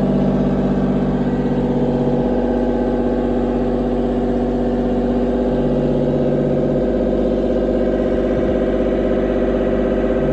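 Excavator's diesel engine running steadily at a constant level, its pitch shifting slightly a few times as the machine works.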